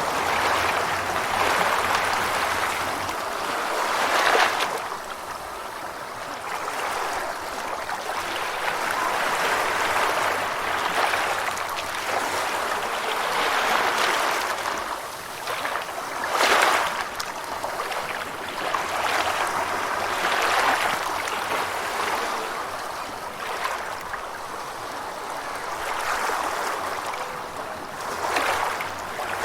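Gentle ocean waves washing ashore, a steady hiss of surf that swells and ebbs every few seconds, with a few sharper breaks.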